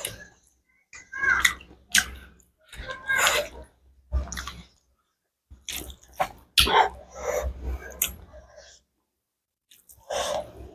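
Close-miked eating: chewing and mouth sounds of a spicy meal of buffalo innards and curry, in a string of short bursts with silent gaps between.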